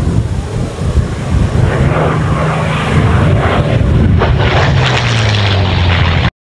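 Supermarine Spitfire's V12 piston engine at high power in a low, fast flyby, its note dropping in pitch as it passes about four and a half seconds in. The sound cuts off suddenly near the end.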